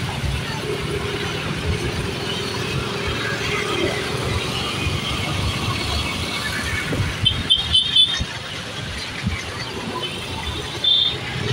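Road traffic: a steady vehicle running noise, with a few short high beeps about seven seconds in and once more near the end.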